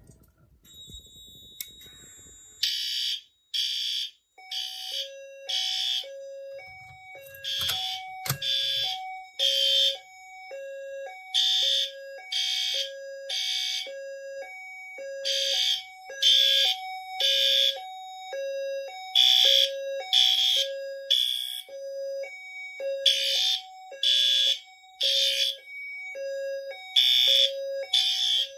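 Fire alarm horns sounding in the temporal-three evacuation pattern (three blasts, a pause, repeating), starting about three seconds in, after a pull station has been pulled. Under them, another alarm device alternates steadily between two lower tones.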